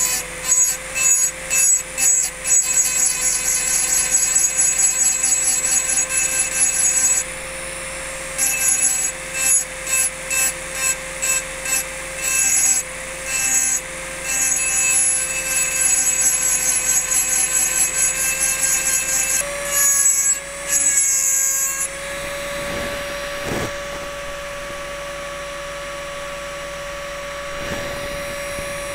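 Handheld engraving drill with a large diamond ball burr wet-grinding into a crystal vase in repeated short strokes: a steady motor whine with a hissing grind each time the burr bites the glass. About 22 seconds in the grinding stops and the motor runs on freely, its pitch slightly higher.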